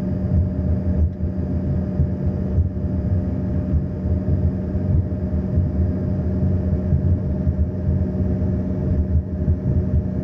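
Airliner's engines running with a steady drone and low rumble, with a few faint steady tones over it.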